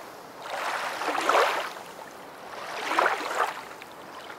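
Rushing water, like waves washing in, rising and falling in two swells.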